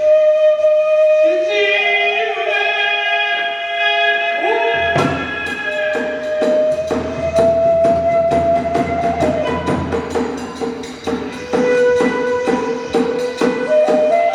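Kagura ensemble music: a bamboo flute playing long held notes, then about five seconds in a drum and hand cymbals join with a steady, fast beat under the flute.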